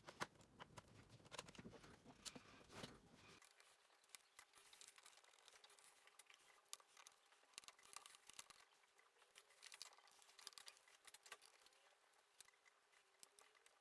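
Near silence with faint, scattered small clicks from Torx screws being unscrewed from a laptop's bottom cover and set aside.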